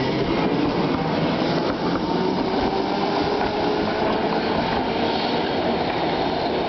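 Tram passing close by and moving away, its wheels running on the rails with a steady rolling noise and a faint steady whine in it.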